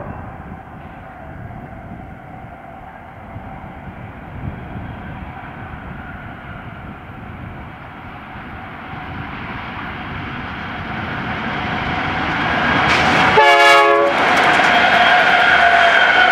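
Diesel locomotives of a double-stack freight train approaching with a rumble that builds steadily louder, then passing close at about 13 seconds with a short, loud pitched blast. After that the locomotives give a whine that slowly drops in pitch as the stack cars begin rolling by.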